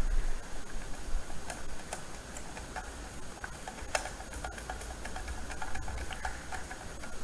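Irregular small metallic clicks and ticks of a hand screwdriver turning small screws into the hard-drive mounting, with a low handling bump at the start.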